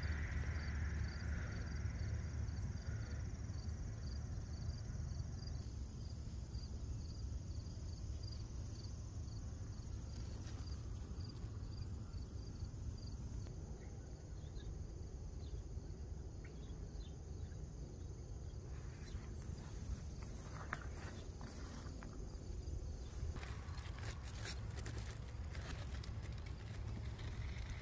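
Outdoor garden ambience: an insect chirps steadily at about two chirps a second over a low rumble. In the last few seconds come rustling and footstep-like clicks.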